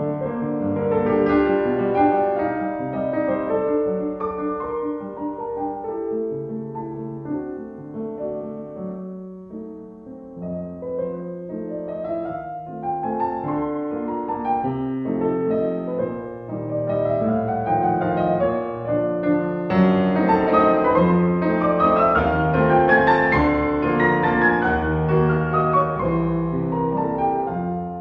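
Background piano music, with flowing runs of notes that climb and fall.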